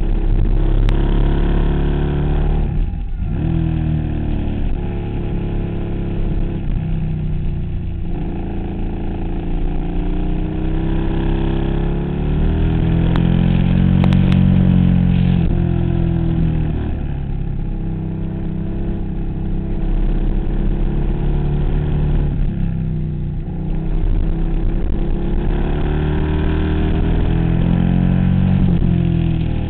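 2008 KTM Super Duke's V-twin engine heard from the bike itself while riding, its revs rising and falling through the bends. The throttle shuts briefly about three seconds in and again near twenty-three seconds.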